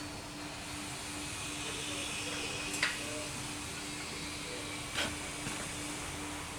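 Two short knocks, about two seconds apart, from parts and tools being handled while the injection pump is fitted to the engine. Under them runs a steady hiss and a low hum.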